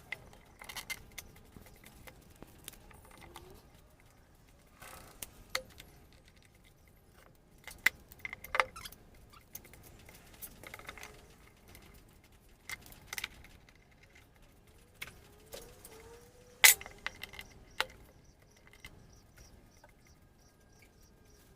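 Scattered clicks, clinks and knocks of tools and materials being handled, with one sharp knock about 17 seconds in.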